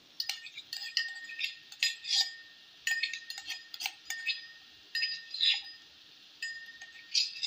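Steel spoon clinking and scraping against steel utensils as crushed green chilli is scraped out of a steel cup into the pan: about a dozen irregular metallic clinks, some with a short ringing tone.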